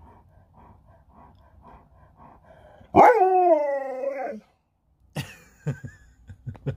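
Alaskan Malamute giving one drawn-out 'talking' howl-like vocalization about three seconds in, its pitch falling, in reply to a question, sounding like 'your one'. A few short clicks follow near the end.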